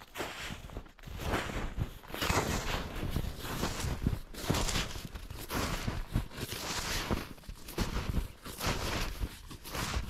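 Footsteps crunching through deep snow at a steady walking pace, about one step a second.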